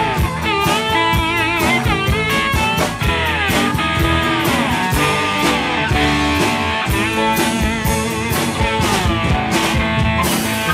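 Pedal steel guitar taking a solo, the steel bar sliding up and down between notes with a wavering vibrato on held notes. Behind it a blues-rock band plays steadily, with electric guitar and drums.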